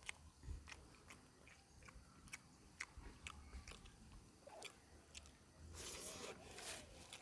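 Close-miked mouth chewing and biting chicken gizzard and liver: faint, irregular wet clicks and crunches, growing louder about six seconds in.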